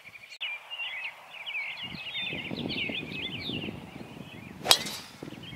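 A golf club strikes a ball once, a single sharp crack near the end, over steady chirping of birds.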